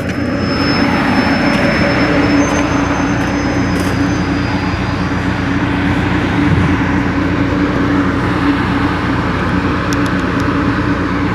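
2019 Carrier rooftop air-conditioning unit running: a steady rush of air from the condenser fan over the steady hum of the compressor and motors. It grows a little louder over the first second.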